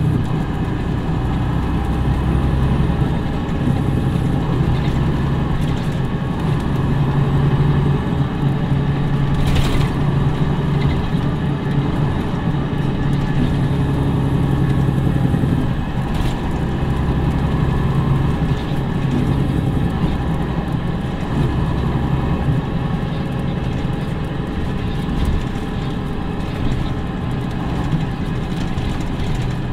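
2011 MCI D4505 coach's Cummins ISM inline-six diesel engine running with a steady low hum, its note changing about 16 seconds in. A single sharp click about 10 seconds in.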